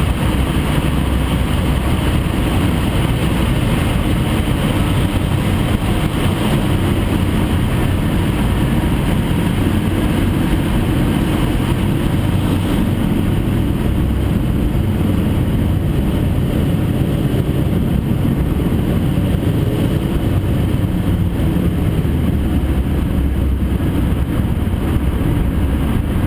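Dodge Stratus engine and exhaust running steadily under way through a Dynomax Turbo II-style muffler: a subdued exhaust note with a lot of engine noise.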